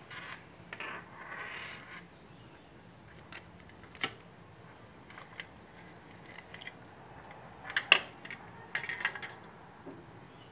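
Plastic graphics-card fan shroud and cable being handled: rustling for the first two seconds, then scattered light clicks and taps, the loudest about eight seconds in.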